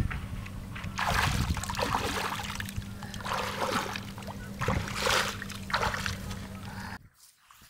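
Water splashing and pouring out of a PVC pipe as it is lifted from shallow pond water and shaken, in three separate gushes, with a steady low hum underneath that cuts off suddenly near the end.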